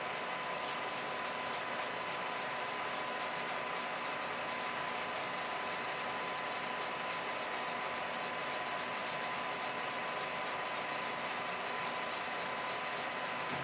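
Colchester 1800 lathe running steadily while a carbide tool cuts the end of a large aluminium tube, throwing off curly swarf, with a faint steady whine.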